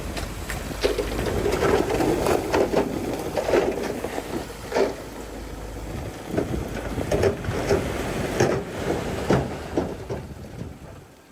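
Komatsu D20P bulldozer working, its engine running under a clatter of repeated irregular clanks and knocks, the sound fading away near the end.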